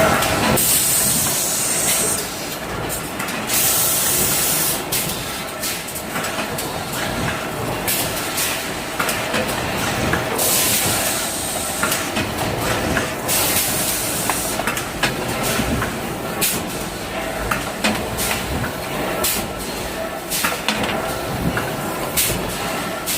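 Heavy metalworking machinery running steadily, with repeated bursts of hiss and scattered metallic clicks and knocks.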